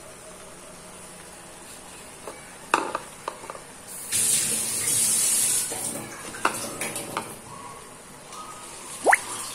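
A brief rushing, hissing noise lasting about a second and a half, a few seconds in, among scattered light clicks and knocks, with a short rising squeak near the end.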